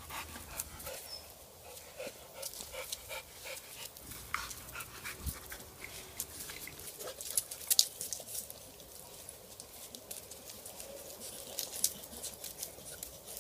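A dog making small sounds, among many short, irregular clicks and taps.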